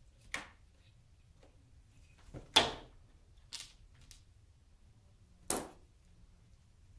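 Birman kittens scuffling at play on a quilted blanket on a tile floor: about five short, sharp knocks and rustles, the loudest about two and a half seconds in.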